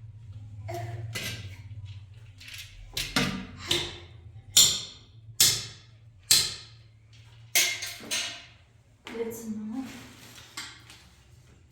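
A series of sharp, irregular knocks or clatters, roughly a second apart, over a low steady hum.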